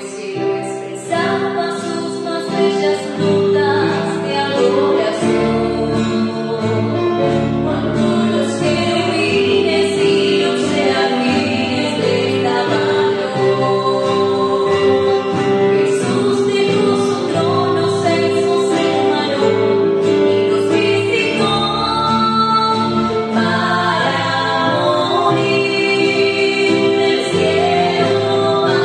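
Two women singing a song together, accompanied by a nylon-string classical guitar played by one of them.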